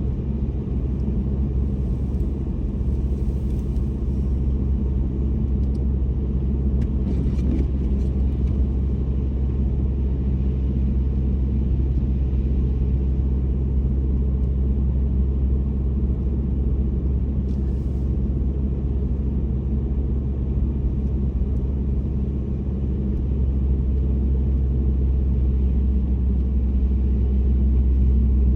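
Car driving, with a steady low rumble of road and engine noise that grows a little louder near the end.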